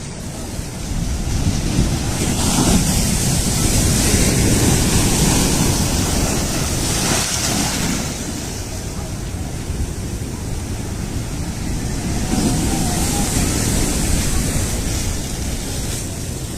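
Cyclone-force wind roaring and buffeting the microphone with a deep rumble and a hiss. It swells into louder gusts a couple of seconds in and again past the middle.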